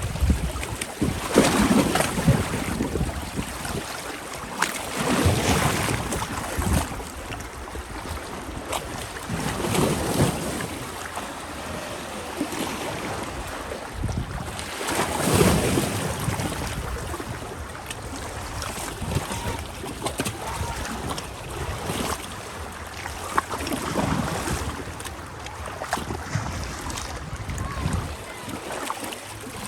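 Small sea waves washing onto the beach, swelling and falling back in surges every few seconds.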